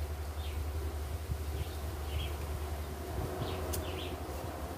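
Lumps of charcoal being handled in a clay coal pot, with a sharp click about three and a half seconds in, over a steady low rumble and scattered short bird chirps.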